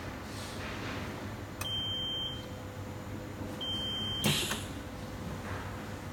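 Two high electronic beeps about two seconds apart, the first about a second long and the second about half as long. Right after the second beep comes a sharp click. A faint steady hum runs underneath.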